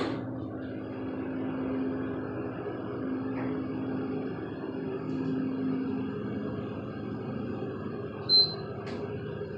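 2003 KONE hydraulic elevator car travelling, with a steady hum. About eight seconds in, a short high ding sounds once.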